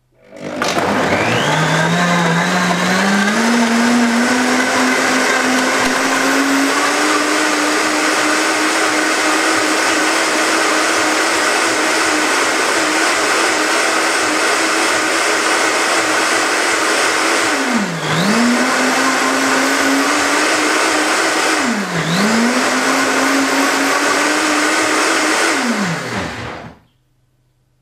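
Harrexco high-speed blender running on its timer, blending banana, apple, carrot and water into a smoothie: the motor climbs to speed over the first few seconds and runs steadily, briefly slows and picks up again twice, then winds down and stops after about 26 seconds, well short of the 60 seconds set on the timer.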